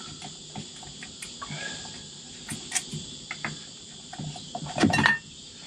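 Scattered small clicks and metal knocks from hands working the chrome cover off a boat's Morse engine-control head, with a louder clatter about five seconds in. Under them, insects chirr steadily at a high pitch.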